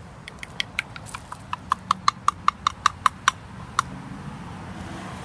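A person making quick tongue clicks to call a cat, about fifteen sharp clicks that speed up to about five a second and stop near the end.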